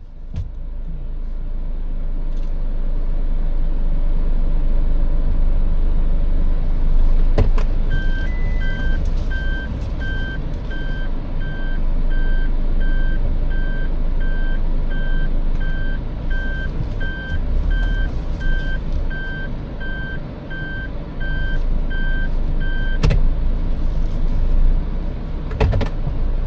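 A vehicle's engine running with a steady low rumble while it reverses, a reversing warning beeping evenly a little under twice a second for about fifteen seconds. A couple of knocks stand out near the start of the beeping and where it stops.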